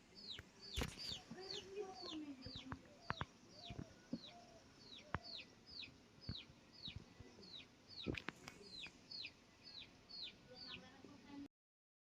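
Chickens clucking in the background, with a quick, steady run of high falling chirps and lower drawn-out calls, broken by a few sharp clicks. The sound cuts off abruptly near the end.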